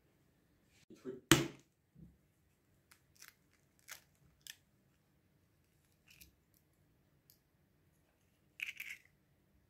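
A sharp knock about a second in, then light clicks and the crackle of an eggshell being broken open and pulled apart by hand, with a short crackling burst near the end.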